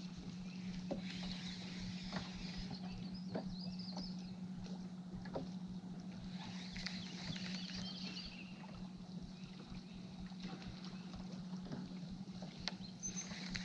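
Electric trolling motor humming steadily at one low pitch, with scattered light clicks.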